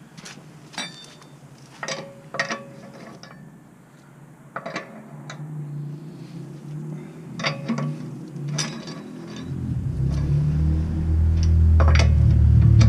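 Metal clinks and knocks of a steel jack stand and tools being set in place under a car, some with a short ring. About ten seconds in, a steady low rumble starts and grows louder.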